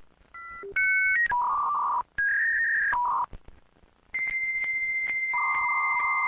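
Dial-up modem connecting: a string of short touch-tone beeps dialling a number, then the answering modem's long steady high tone, broken by faint regular clicks, joined by a lower tone as the handshake begins.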